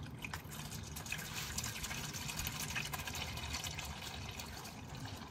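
Old automatic transmission fluid from a Mazda Skyactiv 6-speed automatic pouring in a thin, steady stream from the open drain hole into a catch pan, a continuous splashing trickle.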